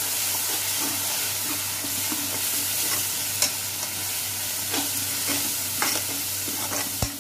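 Onion-tomato masala with ground spices frying in oil in a metal kadai, a steady sizzle as a metal spoon stirs and scrapes it round the pan. A few sharp clicks of the spoon against the pan.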